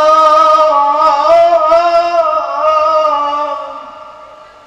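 A man singing one long held note into a microphone, the pitch wavering slightly, then fading away near the end.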